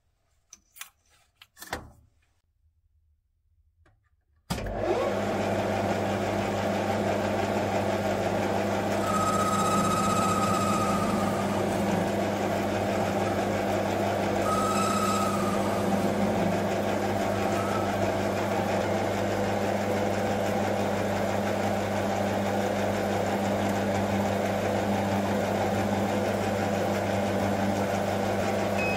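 Metal lathe running with a steady hum that comes in abruptly about four and a half seconds in, after near silence with a few faint clicks. Twice, for a second or two, a higher whine sits on top as the turning tool faces the end of the spinning 12 mm stainless steel bar.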